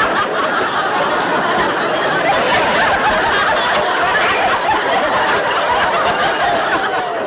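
Studio audience laughing, a long steady wave of crowd laughter.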